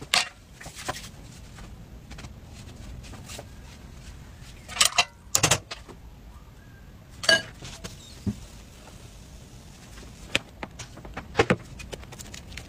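Scattered sharp clicks and taps of chopsticks and hands working at an electric crepe maker, a few loud ones in small clusters, over a low steady background noise.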